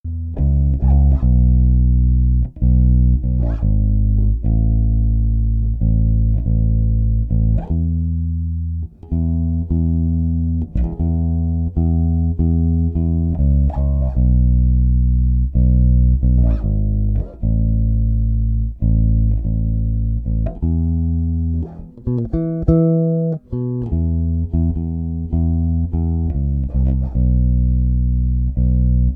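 Sterling by Music Man Ray4 electric bass played solo, a plucked line of sustained low notes with a short run of higher notes about two-thirds of the way through.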